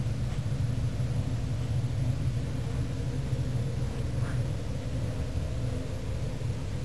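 Steady low rumble with an even hiss over it.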